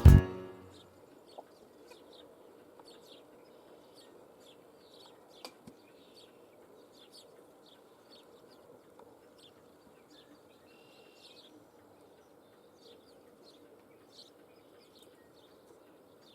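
An African grey parrot making many short, faint, high chirps with a few clicks in between, over a steady low hum.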